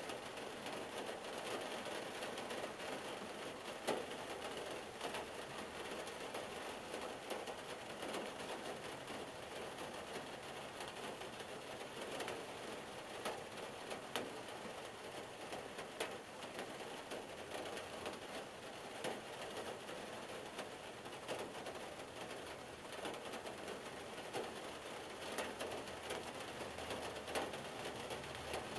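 Steady rain falling on a car, heard from inside the cabin: a dense patter with scattered sharper taps of single drops on the roof and windshield. A faint low rumble joins near the end.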